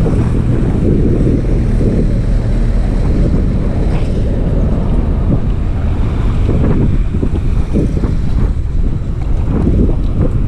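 Wind noise on the microphone of a camera riding on a moving bicycle: a steady, loud low rumble.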